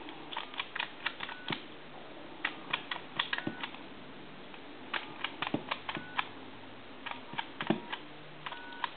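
Plastic push-buttons of a Western Electric Princess telephone's touch-tone keypad clicking as digits are dialed. The presses come in quick runs separated by short pauses.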